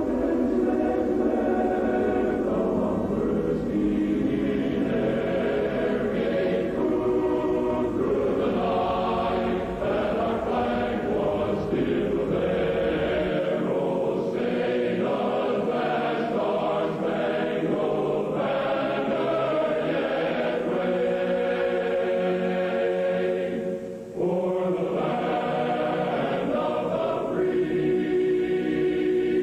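A choir singing sustained chords, sounding muffled with little treble. A low rumble underneath stops about 13 seconds in, and the singing dips briefly about 24 seconds in.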